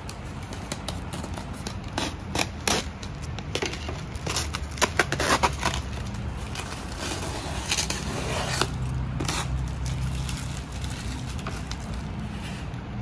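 Cardboard shipping box being cut open and unpacked by hand: irregular scraping and crackling of tape and cardboard with sharp clicks and knocks.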